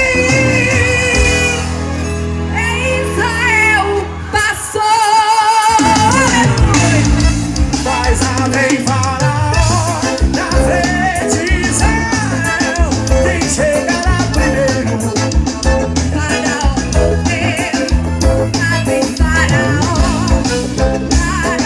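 Live band music, an upbeat forró-style gospel tune with bass, drum kit and a wavering melodic lead line. About four and a half seconds in, the bass and drums drop out for a moment, then the full band comes back in with a steady beat.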